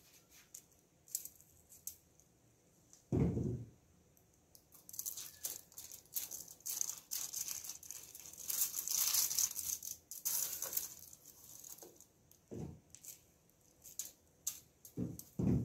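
Hands rubbing dry seasoning into raw lamb chops on a foil-lined baking tray: a dense rustling and crinkling of foil and rub granules through the middle, with scattered small clicks. A dull thump about three seconds in, and a few more near the end, as the tray is knocked.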